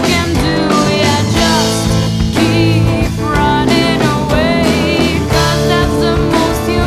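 Background rock music: a sung vocal line over guitar and a steady drum beat.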